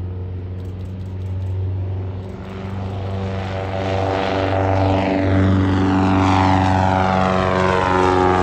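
Van's RV-15 prototype's piston engine and propeller at takeoff power as the plane lifts off and climbs overhead, growing steadily louder. It sounds nothing like a Rotax and is taken for a Lycoming.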